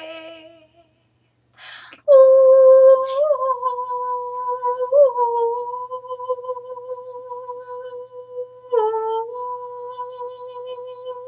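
A woman's voice humming one long, steady note, starting after a breath about two seconds in. It wavers slightly a few times and breaks briefly about nine seconds in before she holds the same note again.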